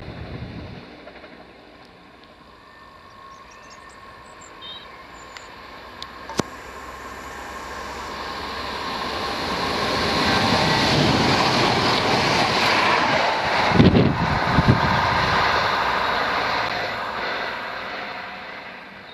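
A Chiltern Railways diesel multiple unit approaches and passes through the station at speed. Its engine and wheel noise build up over about ten seconds and peak with a few loud thumps as it goes by, then fade away.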